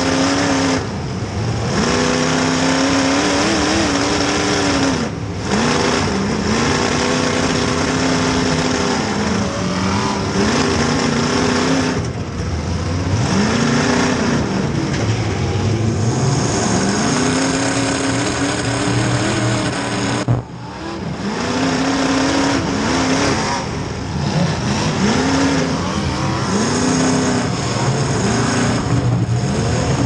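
Demolition derby car's engine heard from inside its stripped cabin, revved hard again and again: each rev climbs, holds, then drops back, about a dozen times over the span.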